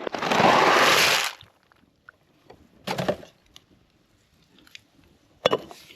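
Dry rigatoni poured from its box into the pot: a loud rattling rush for about a second and a half, then a couple of shorter rustles.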